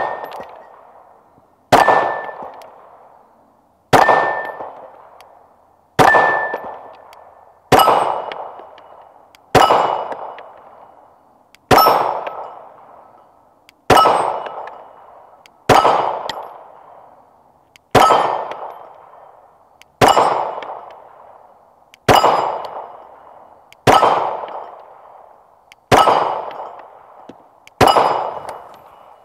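Glock 19 Gen 5 9mm pistol firing a slow, steady string of shots about two seconds apart. Each shot is followed by the ringing clang of a steel target being hit.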